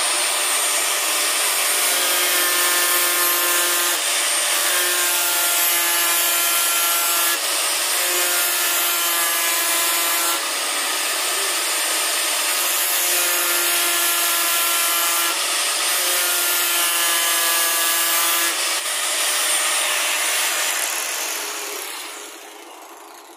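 Electric power tool running steadily under load, with a ringing tone that comes and goes in spells of two to three seconds. The sound fades out near the end.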